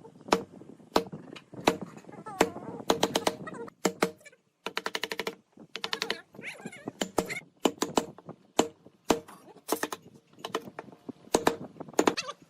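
Irregular sharp taps and knocks from woodworking hand work, about one to three a second, with a fast rattle of about a dozen clicks a second for half a second near the middle.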